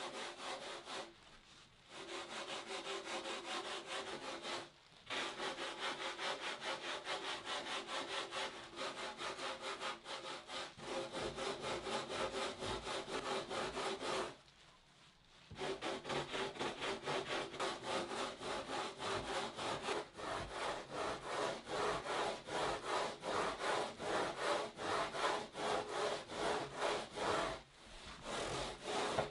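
Hand-rasping and sanding of a foam board blank with a Surform-style rasp and a sanding block: quick, steady back-and-forth scraping strokes. The strokes stop briefly a few times, longest about halfway through.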